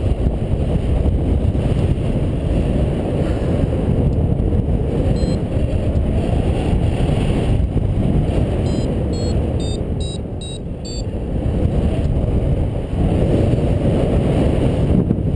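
Wind rushing and buffeting over the microphone of a camera carried by a paraglider in flight, a steady rush with a heavy low rumble. Around two-thirds of the way through comes a quick run of short, high electronic beeps, about three a second, like a paragliding variometer signalling rising air.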